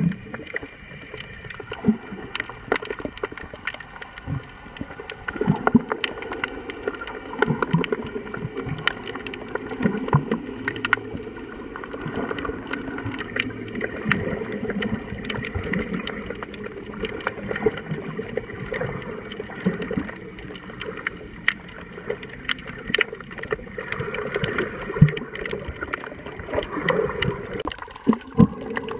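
Underwater sound around a submerged camera: a steady murmur of moving water with a faint hum, broken throughout by many scattered sharp clicks and crackles.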